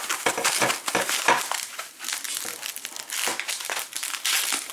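Bubble wrap being handled and pulled off by hand, with irregular crinkling and rustling.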